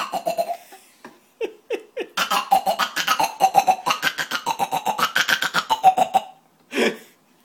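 A toddler making a rattling, croaky noise with her vocal cords, a rapid stutter of about ten pulses a second. A short run, a couple of brief grunts, then a long run of about four seconds and one more short burst near the end.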